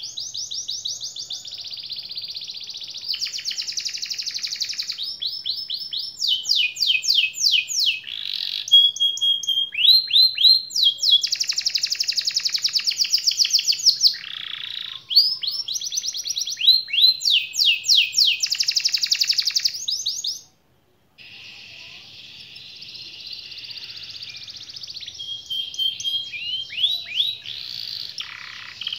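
Domestic canary singing a long, continuous song of fast rolling trills and runs of repeated downward-sweeping notes. The song breaks off for an instant about two-thirds of the way through.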